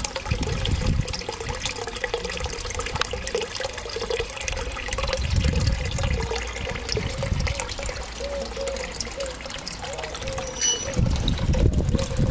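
Water trickling steadily into a small garden pond, with low rumbles on the microphone now and then.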